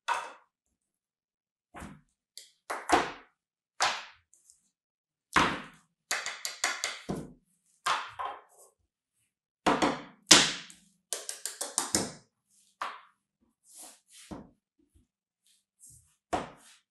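Plastic sand molds being set down and lifted off molded kinetic sand on a padded mat: a series of soft thunks and taps with short gaps between them, including a couple of quick runs of taps.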